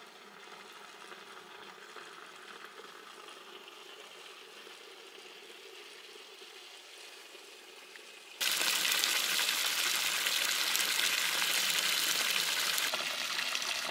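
A steady, quieter hiss, then from about eight seconds in a much louder sizzle of food frying in a hot pan.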